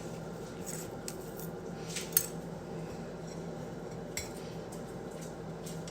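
A few light clinks and taps of kitchenware, the sharpest about two seconds in, over a faint steady hum.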